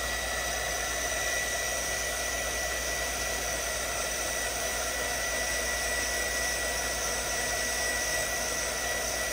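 Handheld electric dryer blowing steadily, drying wet watercolour paint, with a thin high whine held on top of the rush of air.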